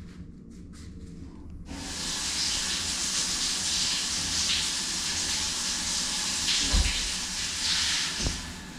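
Handheld shower running, its spray hissing onto tiled walls; it comes on suddenly about two seconds in. Two brief low knocks near the end.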